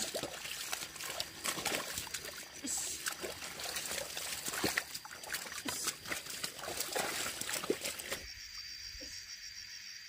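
Wet mud and muddy water squelching, sloshing and splashing as a wooden plow drawn by a water buffalo cuts through a flooded rice paddy, with irregular sucking clicks from the mud. About eight seconds in it gives way abruptly to a much quieter background with a faint steady high tone.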